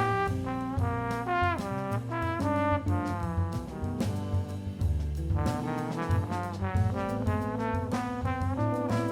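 Jazz-style music: a horn playing a moving melody over a bass line and chords, with light percussion.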